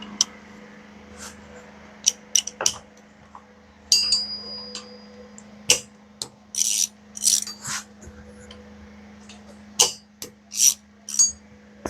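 Hand tools working on an engine: scattered sharp metal clicks and clinks of a ratchet and sockets, one with a brief ringing tone about 4 s in, and several short bursts of ratcheting. A steady low hum runs underneath.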